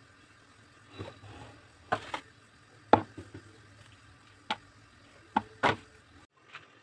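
A few scattered sharp knocks and clicks, the loudest about three seconds in, over a faint low hum that cuts off near the end.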